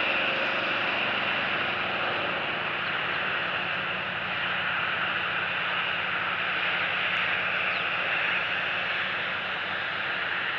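Steady hiss of outdoor background noise with a faint low hum underneath; no clear bird calls stand out.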